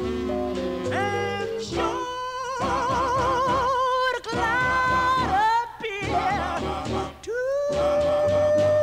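A vocal group's ballad playing from an old 78 rpm shellac record: singing with a wide vibrato over bass and backing harmonies, ending on one long held note.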